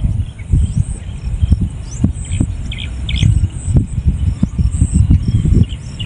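Strong typhoon wind buffeting the microphone: a rough low rumble that surges and drops in gusts. A few bird chirps come through about halfway through.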